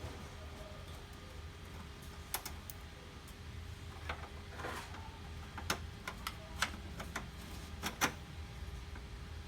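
Plastic parts and screws of a laser printer being handled during disassembly: scattered light clicks and taps, irregular and more frequent in the second half, over a steady low hum.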